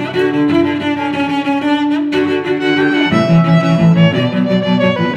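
Background music played on bowed strings, violin and cello, in long held notes.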